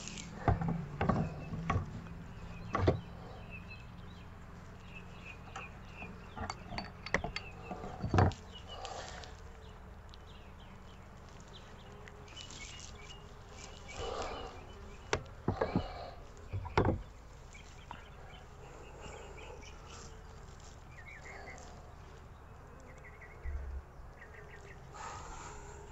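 Wooden hive frame and adapter board knocking and clicking in short irregular clusters as the frame is handled and fitted into the adapter. Birds chirp in the background.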